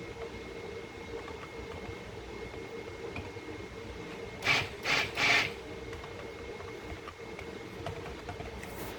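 Spatula scraping through soap batter against the side of the pot: three quick scrapes about halfway through. A steady faint hum runs underneath.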